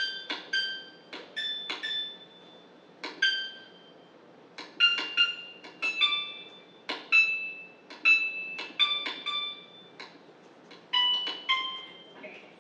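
Synthesized piano notes from a gyroscope-controlled piano demo app, played one at a time by taps: about two dozen short, bright struck tones that die away quickly, at an uneven pace with brief pauses around two and ten seconds in.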